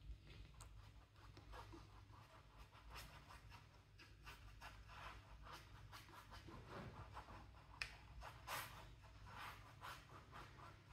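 Faint, irregular scratchy strokes of a flat paintbrush: acrylic paint is mixed on a paper-plate palette at the start, then brushed across a stretched canvas.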